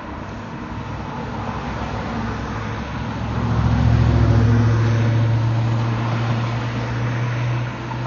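A low engine hum under a steady background rush. It swells about three and a half seconds in, becomes the loudest thing, and holds steady.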